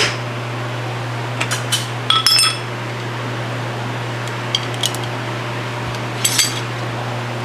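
Light metallic clinks and taps of steel tools or parts being handled, in small clusters, over a steady low machine hum.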